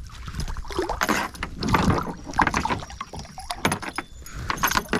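Handling sounds of a fish being fought from a kayak: irregular clicks, rattles and splashes as the line is reeled in, with the fish on the hook.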